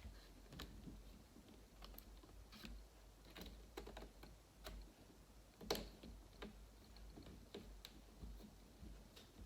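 Faint, irregular clicks and taps of a replacement laptop screen panel and the laptop's plastic housing being handled and settled into place, with one louder tap about six seconds in.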